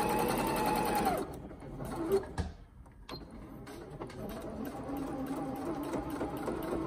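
Janome 1030MX computerised sewing machine stitching with a steady motor whine that stops about a second in. A click follows, and from about the middle the machine runs again at a lower pitch for about three seconds, stopping just after the end.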